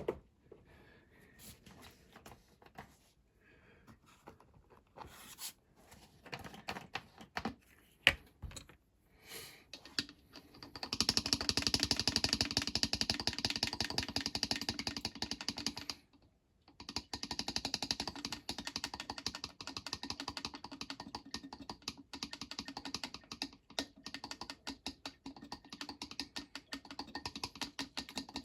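A few scattered clicks and knocks, then, about ten seconds in, a dense run of rapid clicking rattle that breaks off briefly a few seconds later and starts again.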